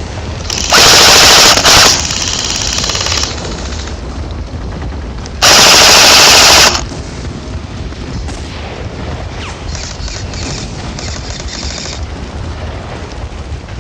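Airsoft G36 electric rifle firing two long full-auto bursts, each over a second, very loud because the phone recording is wedged on the gun itself. Fainter rapid full-auto fire follows later on.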